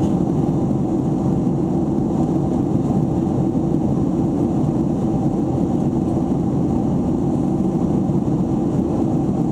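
Jet airliner cabin noise in flight: a steady, deep rush of engine and airflow noise heard from a window seat, with no change in pitch or level.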